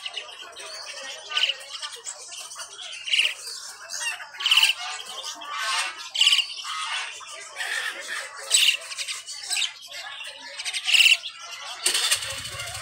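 Hawk nestlings calling: short, shrill, high-pitched calls repeated every second or two. A low steady hum comes in near the end.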